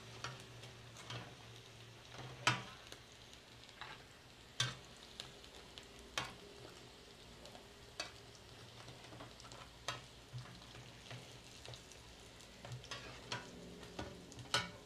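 Potato-and-cheese tacos frying in hot oil in an enamel pan, a faint steady sizzle. A metal spatula clinks against the pan every second or two as the browned tacos are turned and lifted out.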